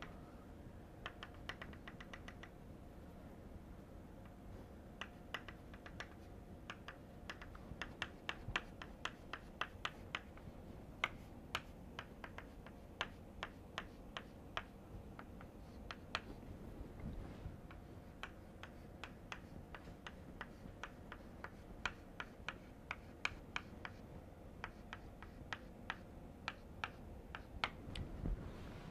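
Chalk tapping on a blackboard: a string of faint, sharp clicks, often several a second, as short hatch strokes are drawn along an outline.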